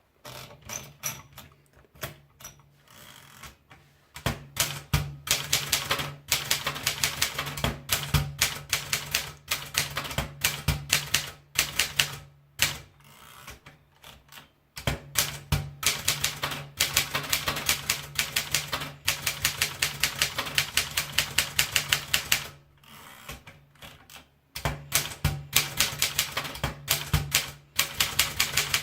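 Triumph Durabel manual portable typewriter being typed on briskly: fast runs of sharp key strikes in three bursts, with two short pauses between them, over a low steady hum.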